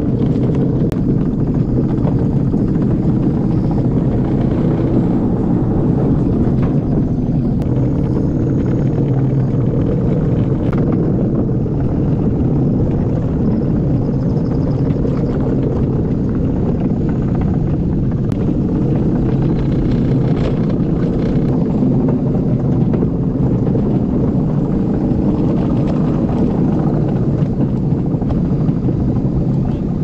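Steady, loud rumble of a summer luge cart rolling down its track at speed.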